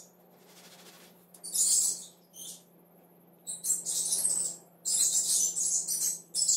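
Thin kite tissue paper rustling and crinkling in short bursts as hands fold and press it over the kite's edge. A faint steady low hum runs underneath.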